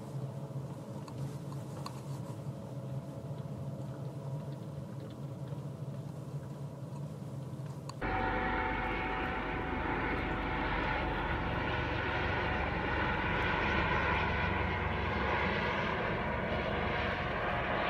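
Steady low engine hum of a vehicle. About eight seconds in it cuts abruptly to a louder, steady rushing roar, like an aircraft engine.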